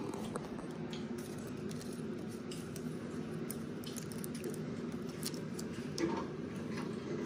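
Small clicks and light rustling as cardboard toy airplanes are picked up and handled, a handful of separate ticks over a steady low background hum.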